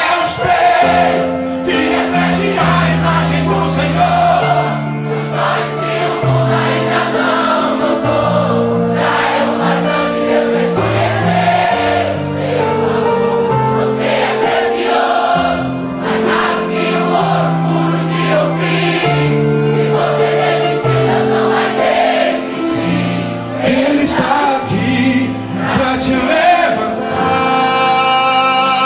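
Live gospel song played by a band with keyboard and bass, with many voices singing together, like a crowd singing along.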